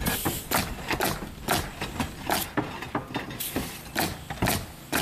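Sharp knocks repeating about twice a second, typical of nails being driven into roof decking on a roofing job, over a steady low engine hum.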